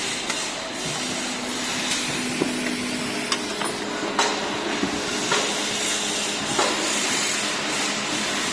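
Factory assembly-line din: a steady hiss and hum of machinery with irregular sharp clanks and taps of tools and parts, about half a dozen over the stretch.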